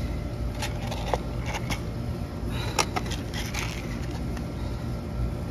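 Small metal parts being handled: a scattering of light clicks and taps, such as a Schrader valve core and tool fittings being picked up and set down, over a steady low background hum.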